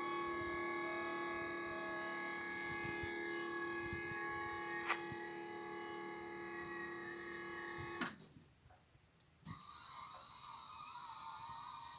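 Electric hydraulic pump motor of a battery-powered work platform lift running with a steady whine as the platform rises, with a sharp click about five seconds in. About eight seconds in it clicks off and stops; after a second and a half of near silence a different, higher motor whine starts.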